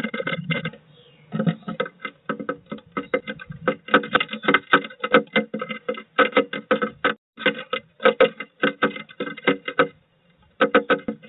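Blue tit pecking and chipping at the wooden inside of a nest box: rapid, irregular sharp taps that ring in the small box, with a short pause about a second in and another near the end.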